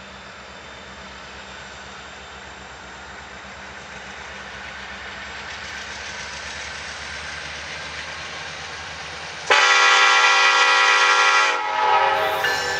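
An approaching Norfolk Southern SD70ACE locomotive: a steady rushing noise that slowly grows louder. About nine and a half seconds in, its air horn starts suddenly, very loud, sounding several tones at once. It holds for about two seconds and then drops to a lower level near the end.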